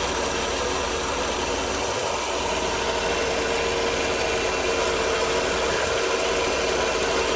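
Mercedes-Benz 300E (W124) straight-six engine idling steadily, warmed up to operating temperature.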